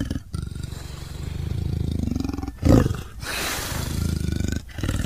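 Tiger vocalizing: rough, pulsing growls start abruptly. The loudest moment is a short burst a little under three seconds in, followed by a breathy, hissing snarl.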